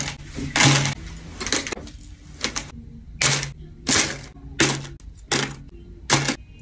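Peking opera headdress ornaments (rhinestone and metal pins) clinking as they are pulled out one by one and set down on a tray: about eight short, sharp clinks, roughly one every 0.7 seconds.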